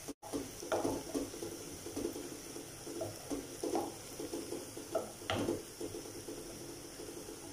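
Wooden spatula stirring and scraping sliced onions frying in oil in a nonstick pot, in irregular strokes over a steady sizzle, as the onions are just starting to brown.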